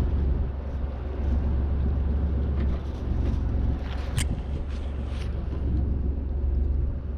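Fishing boat's engine running steadily with a low hum, and a single sharp click about four seconds in.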